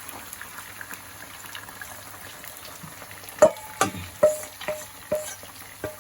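Tofu frying in hot oil with a steady faint sizzle; from about halfway in, a cooking utensil knocks against the metal pan about six times, each knock ringing briefly.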